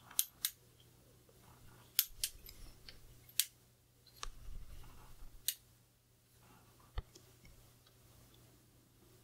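Aluminium travel tripod being handled, its flip-lock leg clips snapping: a scattered series of sharp clicks, with a duller rumble of handling in the middle.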